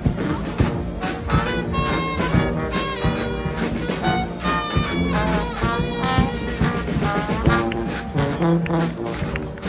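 Guggenmusik brass band playing: trumpets, trombones and tubas in loud brass chords over a steady drum beat, with a snare drum.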